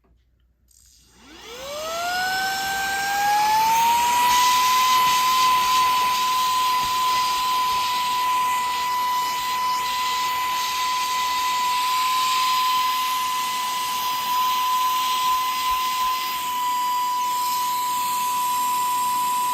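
Saker 3-in-1 mini handheld cordless vacuum cleaner switching on about a second in, its motor whine rising in pitch over a couple of seconds and then running steadily with a rushing hiss.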